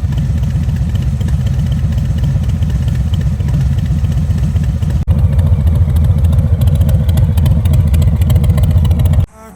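Harley-Davidson Street Bob 114's Milwaukee-Eight V-twin running loud through a Rinehart exhaust, a deep steady rumble. About five seconds in there is a brief break, after which it comes back louder, and it cuts off suddenly near the end.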